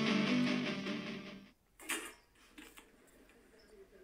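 Background music with a plucked guitar and a steady pulse, fading out about a second and a half in, followed by a faint short knock and a few small ticks.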